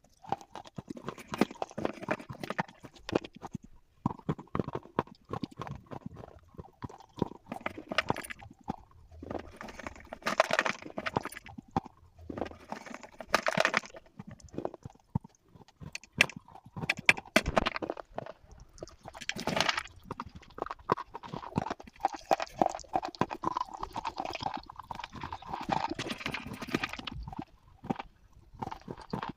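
Close-up crunching and chewing of slate pencils: a dense, irregular run of crisp cracks and grinding bites, with several louder crunches along the way.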